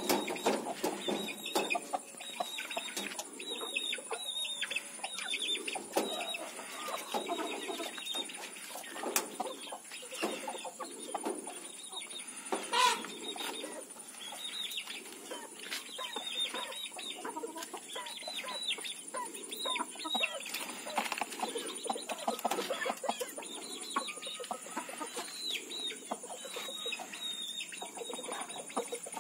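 Domestic chickens clucking softly on and off, with many short high chirps scattered through and one louder call about halfway through, over a steady high-pitched hiss.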